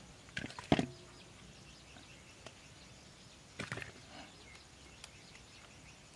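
Two short clusters of knocks against a metal bowl about three seconds apart, the first the louder with a brief ring, over faint bird chirps in the background.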